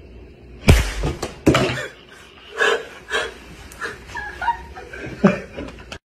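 Two sharp hits, the first the loudest sound here, about half a second apart near the start, then a woman laughing hard in repeated bursts.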